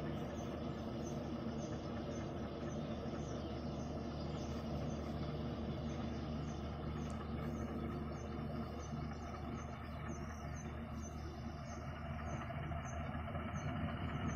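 Two ALCO-design WDM3D diesel-electric locomotives, working in multiple, heard from a distance as a steady low engine drone. Their exhaust is smoking as they haul the train around a curve.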